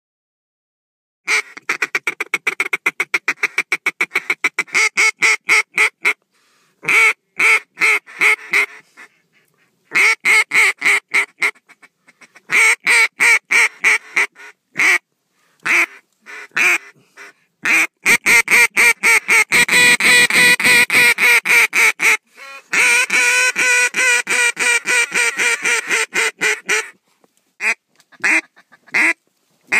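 Mallard duck call blown close by, working ducks overhead: long runs of quick, evenly spaced quacks with short breaks, a denser fast chatter about two-thirds of the way through, and a few single quacks near the end.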